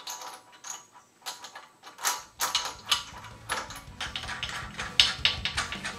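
Socket ratchet wrench clicking in short, irregular runs while engine mount bolts are turned, with light metal knocks between the runs.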